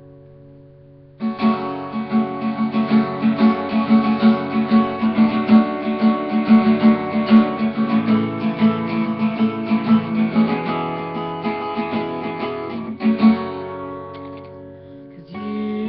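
Acoustic guitar playing an instrumental introduction: a chord rings and fades, then about a second in a fast rhythmic picked and strummed pattern starts and runs until shortly before the end, where it eases off and a new chord comes in.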